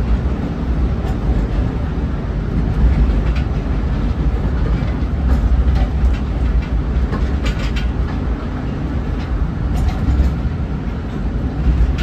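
Narrow-gauge forest railway train running, heard from an open-sided passenger car: a steady low rumble, with short clacks of the wheels over rail joints every couple of seconds.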